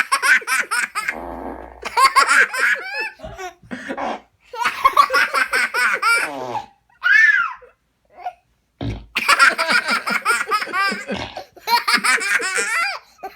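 A child laughing hard in long bursts of high-pitched giggling, with a short low fart sound about a second in.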